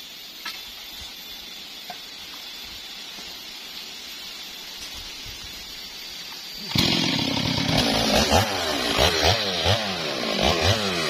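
Faint steady hiss, then about two-thirds of the way through a Stihl two-stroke chainsaw comes in suddenly and loudly, revving up and down repeatedly.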